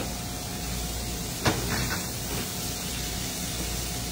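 Steady hiss of a gas burner and a pan of olive oil in which anchovies are being stirred to melt them, with one sharp knock about one and a half seconds in.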